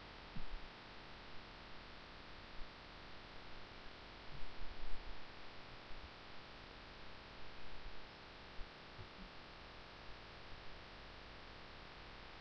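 Low room tone from a recording microphone: a steady hiss and a low hum, with a few faint soft knocks, a cluster of them about four to five seconds in.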